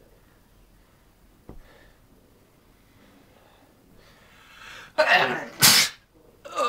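A man's sneeze, set off by tissue pushed up his nose. A short build-up of breath about four and a half seconds in leads to a loud voiced 'ah', then the sharp, loud sneeze just before six seconds in.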